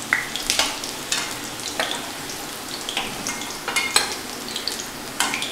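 Chicken pakora frying in hot oil in a kadai: a steady sizzle with sharp crackles, as a spatula stirs the pieces and lifts them out.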